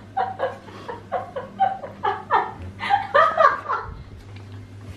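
People laughing in a run of short, repeated bursts that die away near the end.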